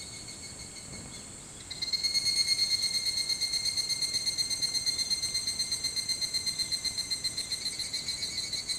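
Higurashi (evening cicadas, Tanna japonensis) calling: a steady high chorus, then about two seconds in a nearer one starts a loud, rapidly pulsing call that runs on and eases slightly near the end.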